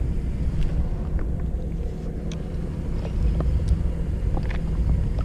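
Steady low engine drone with a constant hum, a boat engine or generator running, with a few light clicks and taps scattered through it.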